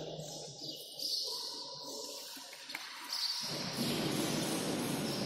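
Steady background noise in a large sports hall, with one faint click about halfway through; the noise gets suddenly fuller about three and a half seconds in. No shuttle hits are heard.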